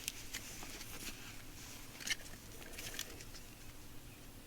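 Faint rustling of clothing being handled, with a few soft clicks about a second apart.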